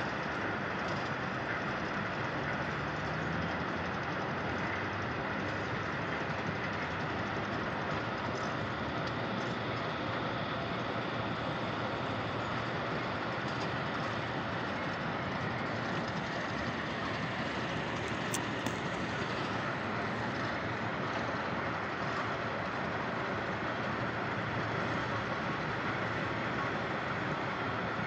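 Steady noise of heavy machinery working in an open-pit quarry: excavator and dump truck engines heard at a distance.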